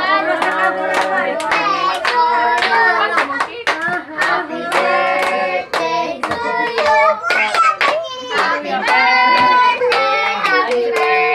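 A group of people singing a birthday song together, clapping along to the beat.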